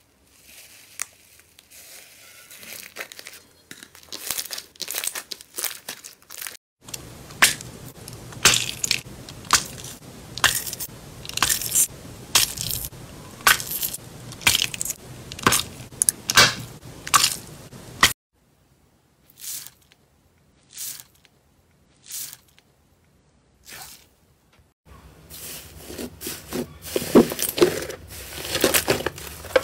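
Slime being poked, squeezed and pressed by hand, giving a run of sharp, irregular crackles and pops. Past the middle there is a sparser stretch of a few isolated clicks.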